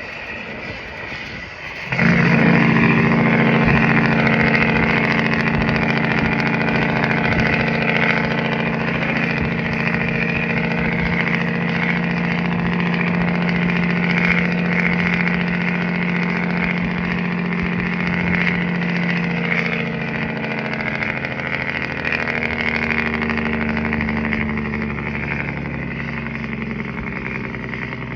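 Heavy tractor-trailer truck's diesel engine running steadily at a constant pitch while hauling the loaded trailer. It cuts in abruptly about two seconds in, after a quieter stretch of road and wind noise.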